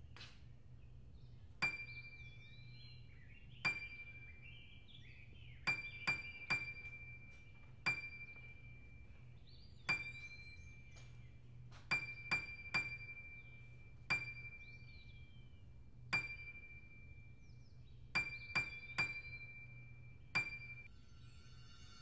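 Sharp clinks of glass, roughly every two seconds with quick runs of three, each leaving a high ringing tone that hangs on between strikes. Faint chirps sound between the clinks.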